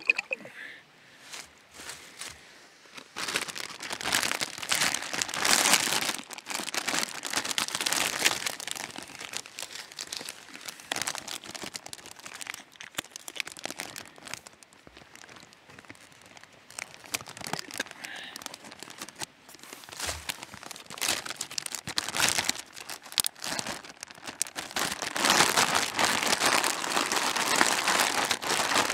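Plastic zip-lock bag crinkling and rustling in irregular bursts as hands knead meat in sauce inside it to marinate it, loudest near the end.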